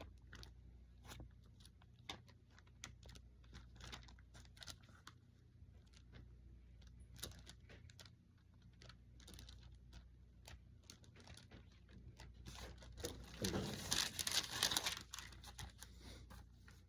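Scattered light clicks and taps while a Bible passage is looked up, with a louder rustle of paper pages about thirteen seconds in.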